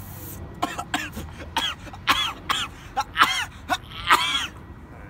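A young man coughing hard: a rapid run of short, strained, rasping coughs and hacks that starts about half a second in and stops near the end.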